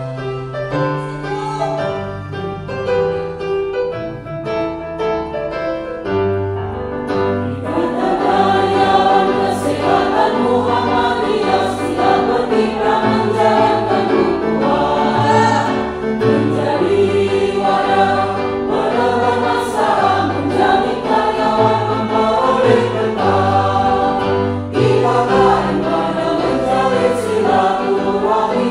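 A short keyboard introduction, then a choir singing together in rehearsal over keyboard accompaniment from about seven seconds in.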